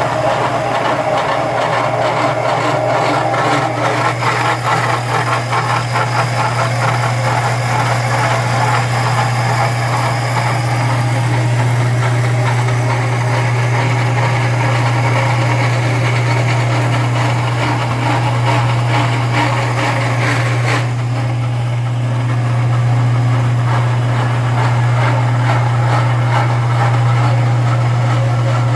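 Portable boring and surfacing machine running with a steady low hum under a rougher, higher machining noise. The higher noise drops away about two-thirds of the way through, leaving the hum.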